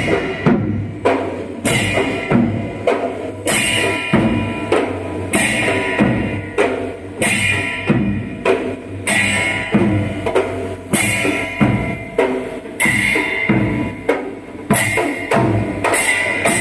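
Manipuri dhol cholom drumming: a large dhol barrel drum beaten with a stick and smaller double-headed dholak drums played by hand, together in a fast, driving rhythm. A bright clash lands on an accented beat about every two seconds.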